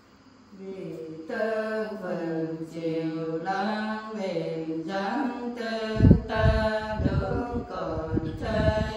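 Unaccompanied female voice singing a slow Nùng folk song in long, held, wavering notes, starting about a second in. From about six seconds in, a few low thumps sound under the singing.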